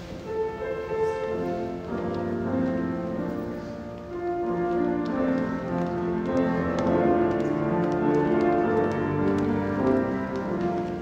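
Organ playing slow, sustained chords of held notes.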